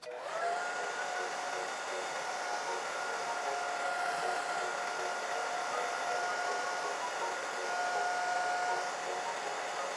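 Handheld hair dryer switched on, its pitch rising briefly, then running steadily: a constant whine over the rush of air. It is drying lace-melting spray on a wig's lace until tacky.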